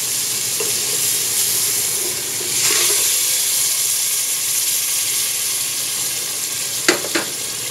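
Sliced onions sizzling in olive oil in an aluminium pot while canned whole peeled tomatoes are poured in, with a louder rush of sizzle about two and a half seconds in. Two sharp knocks near the end.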